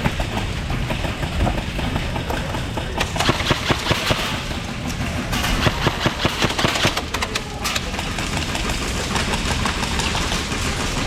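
Airsoft guns firing in rapid bursts in an indoor arena, with sharp repeated pops in two stretches through the middle over a steady low rumble.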